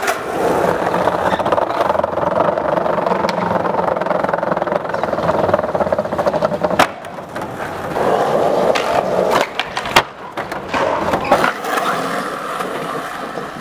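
Skateboard wheels rolling over concrete and paving with a steady rumble, broken by sharp clacks of the board popping and landing, the loudest about 7 and 10 seconds in.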